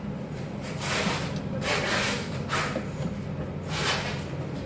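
Handling noise of wooden shoe-rack panels being shifted into place: several brief rubbing, scraping swishes, each about half a second, over a steady low hum.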